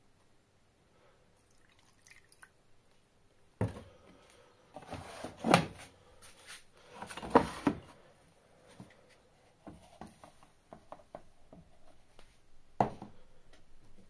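Laundry detergent being poured into a washing machine's plastic dispenser drawer, with knocks and clicks from handling the plastic bottles and drawer. A sharp knock comes about three and a half seconds in, two longer pouring swells follow, and another sharp knock comes near the end.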